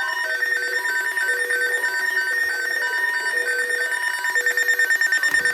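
Several weather alert radios sounding their alarms at once: a steady high tone with overlapping, evenly repeating beeps at different pitches. A fast-pulsing beep grows stronger about four seconds in.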